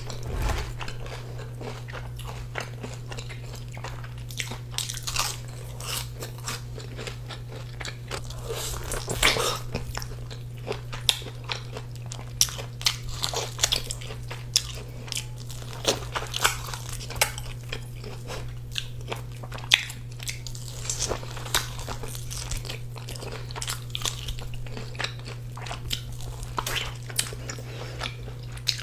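Close-miked crunching and chewing of crispy fried food, with repeated sharp crackly bites through the whole stretch over a steady low hum.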